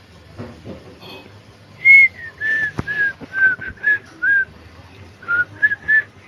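A person whistling a short tune of about eleven brief notes with a pause partway through; the first note is the highest and loudest.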